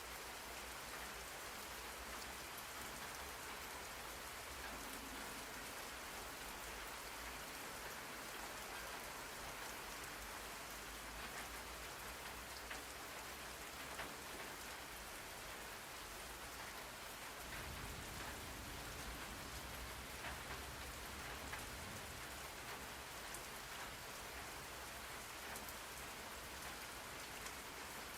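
Steady rain falling on a surface, an even hiss with scattered drops ticking through it, played as a background noise track.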